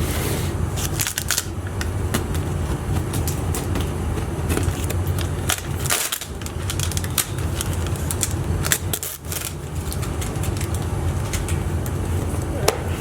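A cardboard shipping box being opened and its packing handled: scattered crackles, rustles and knocks, over a steady low hum.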